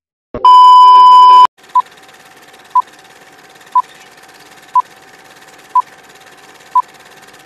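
Film-leader countdown sound effect: a loud steady test tone for about a second, then six short beeps, one each second, over a faint steady hiss and hum.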